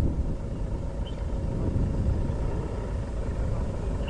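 Low, steady rumble of a safari game-drive vehicle's engine idling, with a short bird chirp about a second in.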